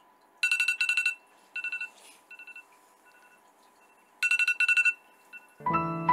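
Smartphone ringing with a rapid electronic beeping tone: two loud groups of fast beeps, each followed by fainter, shorter repeats that die away. Soft piano music comes in near the end.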